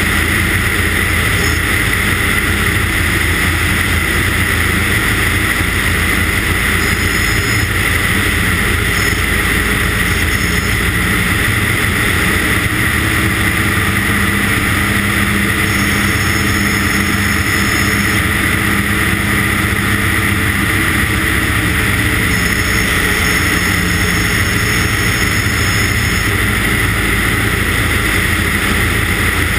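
Light ski-plane's engine and propeller in steady cruise flight, a constant drone with no change in pitch, recorded by a camera mounted on the outside of the aircraft.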